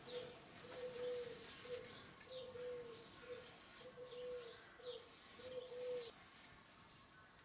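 A dove cooing faintly in a steady repeating phrase of short and longer low notes, stopping about six seconds in, with faint short high chirps alongside.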